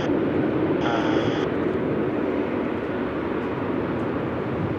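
Jet airliner engines at takeoff power, a steady dense rumble.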